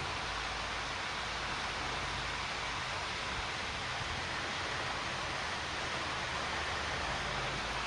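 Steady hiss with a low hum beneath it, unchanging, with no distinct events.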